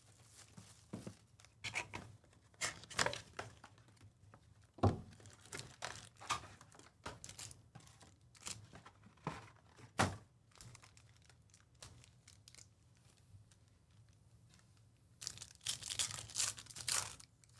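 Plastic shrink-wrap being torn off a Panini Select basketball hobby box, with wrapper and cardboard rustling as the packs are handled and two sharp knocks about five and ten seconds in. Near the end, a foil card pack is torn open.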